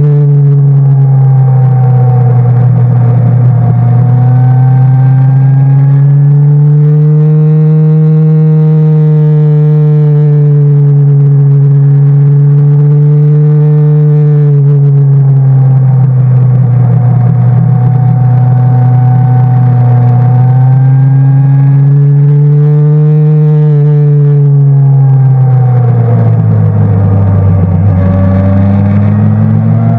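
Motorcycle engine running hard through a string of bends, its pitch rising and falling every few seconds as the throttle is rolled on and off. Near the end the pitch drops low, then climbs again.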